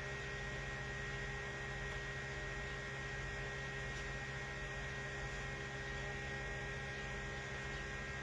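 Steady electrical mains hum, a constant drone of several even tones with a hiss beneath, unchanging throughout.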